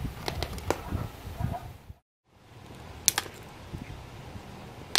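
Fingers handling a tiny 3.7 g plastic micro servo, giving scattered small clicks and taps. There is a brief gap of silence about two seconds in, then a sharp click about a second later.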